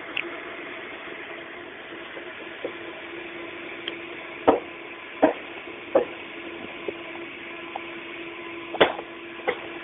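A machine runs with a steady hum at construction-site distance while a handful of sharp knocks and clanks land at irregular intervals, the loudest in the middle and near the end.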